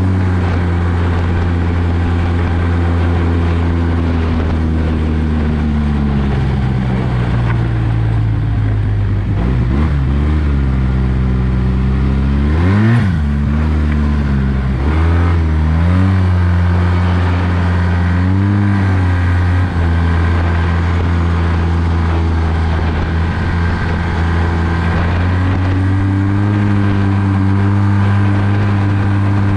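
Arctic Cat 1100 Turbo snowmobile's turbocharged three-cylinder four-stroke engine running under way on the trail. The note holds steady at first, then drops as the throttle comes off. Near the middle it rises and falls through several quick throttle changes, then settles into a steady cruise that climbs a little near the end.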